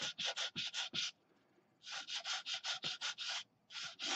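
A sanding stick rubbed quickly back and forth along the edge of a scale model wall, about six scraping strokes a second. It stops briefly near the middle, then carries on, trimming the edge down flush.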